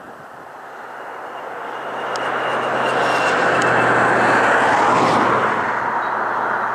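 Jet engines of a DC-10 air tanker running as the aircraft comes down the runway. The sound swells to a peak about four to five seconds in and then eases off, with a thin high whine over the rushing noise.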